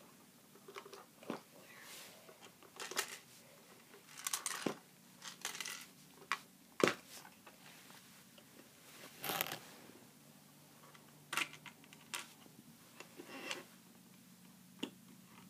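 Hands handling a plastic Lego set: faint, irregular clicks and rustles of small pieces being moved. A sharper click comes about seven seconds in.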